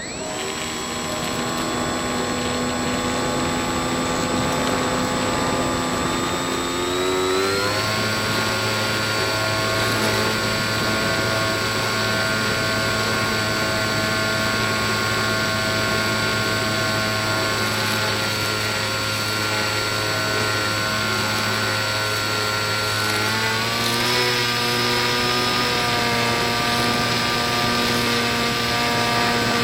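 Electric motor and 7x5 propeller of a small RC Factory Step One foam plane, running with a steady whine. The pitch rises sharply about seven seconds in as the throttle goes up, and rises a little again near the end.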